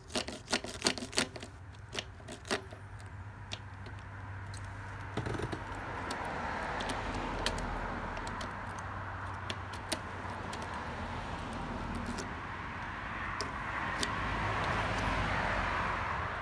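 Key clicking and rattling in a sticky Kawasaki Z1000 ignition lock for the first couple of seconds as it is wiggled to turn. This is followed by a steady rushing background noise that swells and fades near the end.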